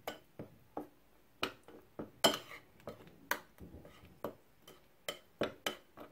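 A metal utensil stirring a thick yeast-and-semolina paste in a ceramic bowl, clinking against the bowl in short, irregular ticks, about two a second.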